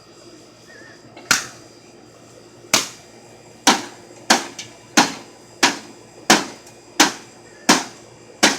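A microwave oven being struck again and again by hand: about ten sharp blows, a second or more apart at first, then coming faster, about one and a half a second.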